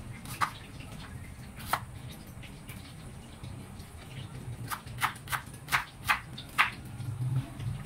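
Chef's knife slicing a red onion on a plastic cutting board: two separate cuts, then past the middle a quicker run of six knife knocks on the board.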